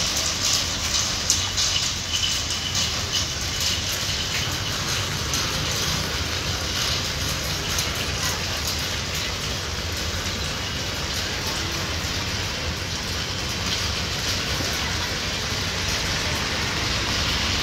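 Light rain falling on a wet street: a steady hiss of drops over a low rumble.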